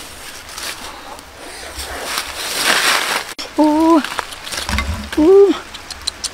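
Rustling of leafy branches and plants being handled. Then, after a cut, a woman's voice makes two short hums, the second rising and falling.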